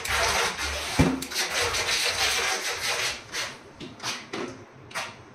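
Toy RC crocodile boat driven through bathtub water, its propellers churning up a steady hissing spray that breaks up and fades toward the end. One sharp knock about a second in.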